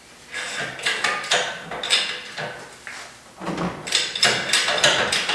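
Metal clatter of hand work on a snowmobile engine: a run of sharp knocks and clicks, scattered at first and quickening to several a second near the end, as the engine is worked loose from the chassis.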